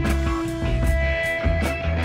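Background instrumental rock music: guitar with long held notes over a bass line and a steady drum beat.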